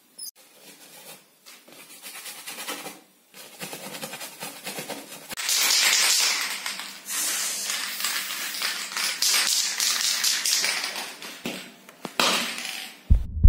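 Dry scratching and rubbing on a surface, thick with small ticks, faint at first, building about three seconds in and stopping abruptly near the end.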